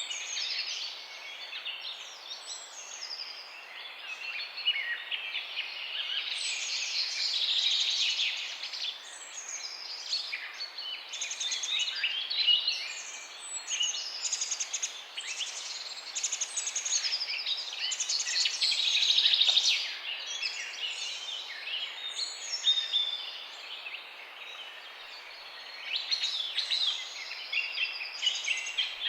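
Morning chorus of many songbirds chirping and singing over one another, a dense, continuous mix of quick chirps and trills, over a faint steady outdoor hiss.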